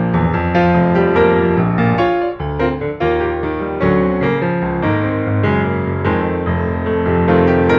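Background music: a piano-led instrumental track playing a series of notes and chords.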